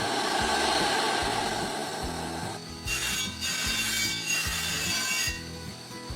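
Scraping and rasping: one continuous scrape for about two and a half seconds, then several shorter ones.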